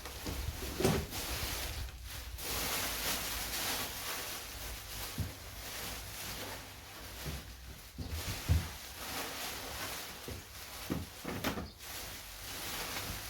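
Hands rummaging through parts in a workshop while searching for a small part: steady rustling with a handful of short knocks and clicks as things are moved about.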